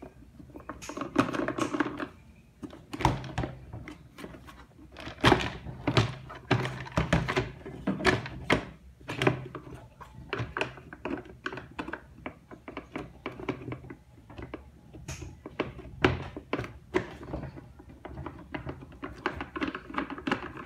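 Irregular knocks and clicks of a screwdriver and hands on the hollow plastic casing of a Kärcher K2 pressure washer as its housing screws are undone and the casing is handled.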